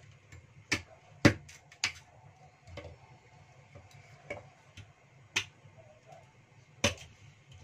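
Cleaver chopping lotus root on a thick wooden chopping block: about half a dozen sharp chops at uneven intervals.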